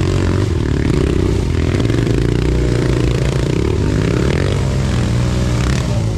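Dirt bike engine running loud and revving up and down as the bike climbs a rocky, rutted trail step, with some clatter and scraping from the tyres and ground.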